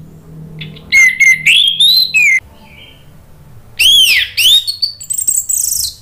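Orange-headed thrush singing two loud phrases of clear whistled notes that slide up and down. The second phrase ends in a fast, very high chatter.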